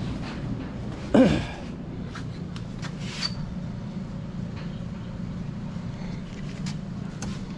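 A steady low machine hum runs under a few light clicks and knocks of handling in a workshop. About a second in comes one brief, loud rising tone.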